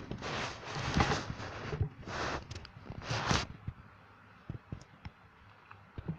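Puppy pads crinkling and rustling as a puppy scrabbles about on them, in several noisy bursts over the first three and a half seconds, then a few light clicks and taps.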